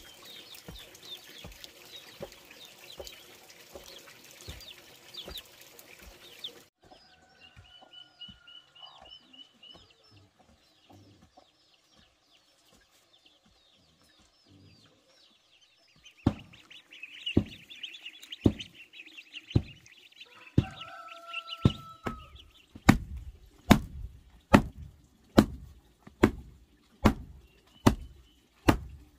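Birds chirping and chickens clucking. In the last quarter a wooden hand tamper pounds a freshly laid clay-earth floor, about one heavy thud a second, after a few scattered knocks.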